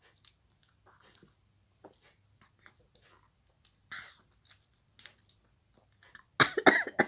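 A person chewing lemon soaked in vinegar and chili: soft, wet mouth clicks and smacks, with a louder smack about four seconds in and a short, loud cluster of mouth noise near the end.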